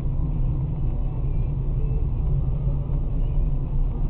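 Steady low rumble of a car's engine and tyres while driving at highway speed, heard from inside the cabin through a dashcam microphone.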